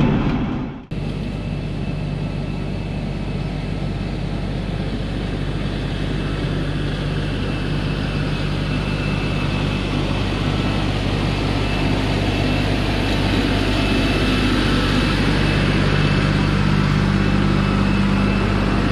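An LS MT342 compact tractor's diesel engine runs steadily under load while pulling a box blade through dirt. It dips briefly about a second in, then grows gradually louder as the tractor nears.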